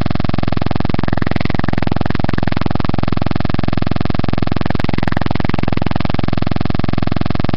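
A loud, steady electronic buzz in a webcam recording's audio. Faint, muffled voice sounds come through it about a second in and again around five seconds.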